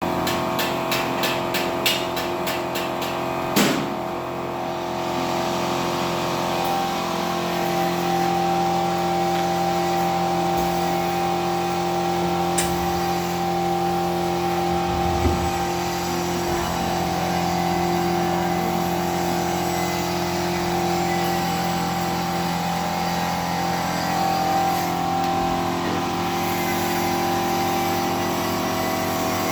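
Vacuum leak test machine running with a steady hum of several tones. A rapid run of clicks fills the first three seconds, a sharp crack comes about three and a half seconds in, and there are a couple of single knocks later.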